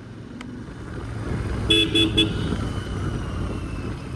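Motorcycle engine and road noise swelling as the bike accelerates in traffic, with a vehicle horn beeping three times in quick succession about halfway through.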